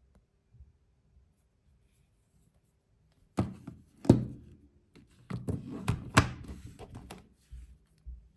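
Near silence, then, from about three and a half seconds in, a series of short knocks and thuds. The sharpest come about four and six seconds in.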